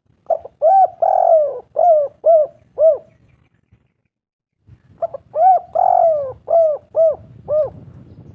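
Spotted dove cooing: two matching phrases, each a quick run of short hooting notes with one longer drawn-out note after the first two, separated by a pause of about two seconds.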